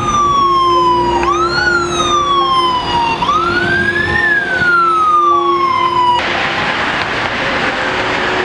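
Emergency vehicle siren wailing, each cycle rising quickly and then falling slowly over about two seconds, over a steady low hum. About six seconds in it cuts off suddenly, leaving a steady rush of road traffic noise.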